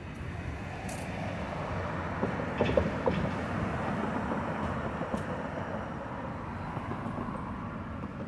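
Cars driving over a street-level railroad crossing: steady road-traffic noise that swells about two seconds in, with a few sharp clacks near three seconds in.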